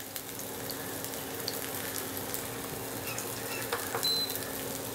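Semolina-coated pomfret pieces shallow-frying in a little oil in a non-stick pan over low heat: a steady sizzle with scattered small crackles, over a faint steady low hum.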